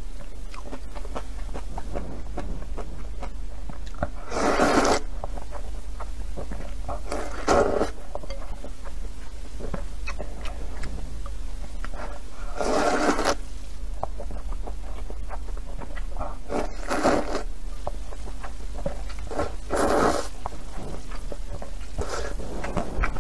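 A person slurping rice noodles in soup close to the microphone: about five loud slurps, with small wet clicks of chewing between them.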